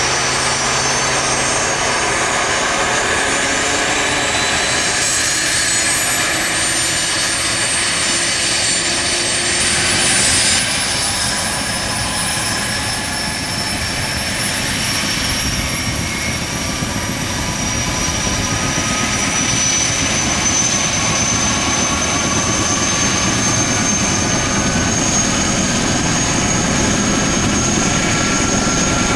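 Boeing CH-47F Chinook running on the ground, its twin Lycoming T55 turboshaft engines and tandem rotors turning. A high turbine whine rises slowly in pitch over a steady loud rush, with a brief swell about ten seconds in.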